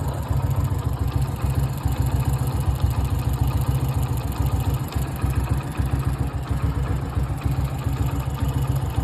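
Hero Splendor motorcycle's single-cylinder four-stroke engine idling steadily in a rapid even pulse, with a strange noise coming from one part of the engine that has only recently appeared and that the owner cannot identify.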